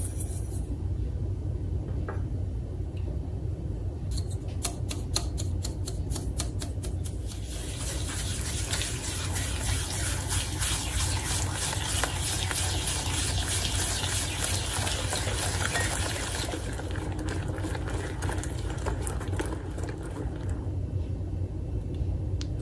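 A hand whisk stirring a thin liquid mixture in a bowl, in quick rhythmic strokes that start as light clicks, become a fast, dense swishing, then ease off near the end. A steady low hum runs underneath.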